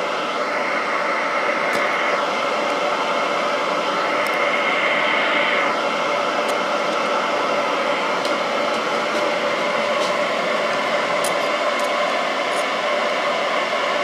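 Metal lathe running steadily while turning a brass workpiece, a constant mechanical hum with a few held tones and an occasional brief falling whine.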